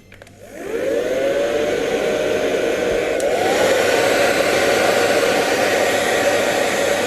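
Hair dryer running: a steady blowing whir with a motor hum that rises as it spins up, then a click about three seconds in and the hum climbs higher, as if switched to a faster setting.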